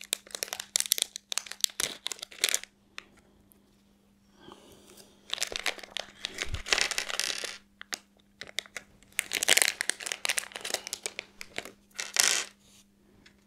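A thin plastic parts bag crinkling and tearing in several bursts as it is opened and its contents are pulled out, with light clicks of small parts being handled. A faint steady hum sits underneath.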